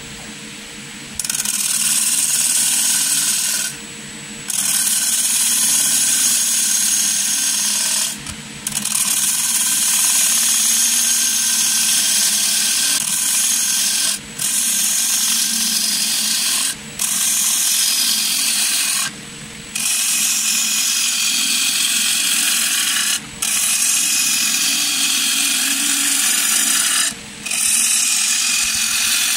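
Wood lathe spinning a large bowl blank while a gouge cuts its outside, a loud hissing shear of wood being turned, broken off by several short breaks as the tool leaves the wood. A steady lathe motor hum runs underneath, and the cutting starts about a second in.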